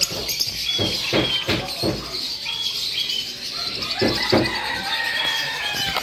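Caged budgerigars chirping and chattering, with quick short warbled calls, and a few low thumps in two groups, about a second in and about four seconds in.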